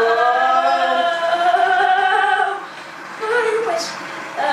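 A high voice singing long held notes: one note held for about two and a half seconds, then a shorter one about three seconds in.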